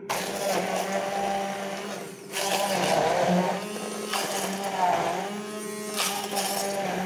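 Hand-held stick blender running in a pot, puréeing chillies, onion, garlic and tomato: a steady motor hum with the churning of the blade through the mixture. The churning drops away briefly about two seconds in, then comes back louder.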